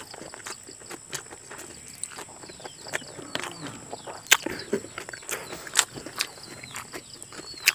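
Eating with the hand off a banana leaf: irregular sharp clicks and soft taps of fingers pressing and gathering rice on the leaf, mixed with mouth smacks.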